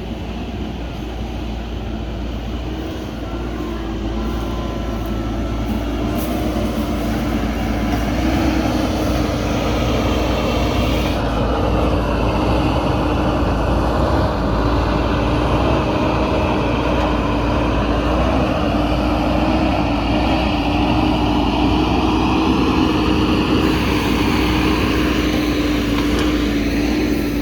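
JCB backhoe loader's diesel engine running steadily under working load, with a constant droning note that grows a little louder several seconds in.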